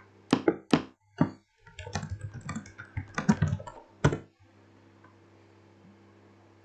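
Typing on a computer keyboard: a quick, uneven run of key presses for about four seconds, then the typing stops and only a faint low hum remains.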